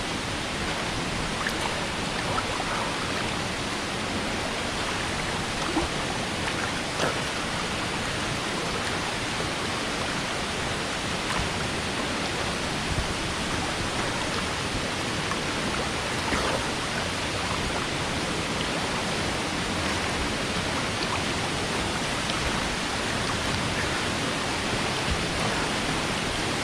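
Steady rush of falling water from a waterfall pouring into a pool, with a few faint splashes.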